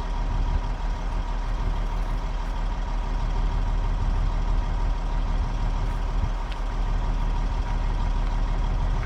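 Semi truck's diesel engine idling steadily, kept running so its compressor builds air pressure for the air line.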